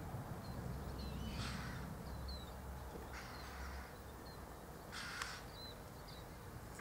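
Harsh bird calls, about four, spaced a second or two apart, with faint short high chirps from small birds between them.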